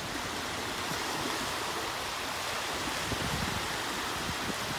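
Small waves breaking and washing in at the shoreline: a steady rush of surf.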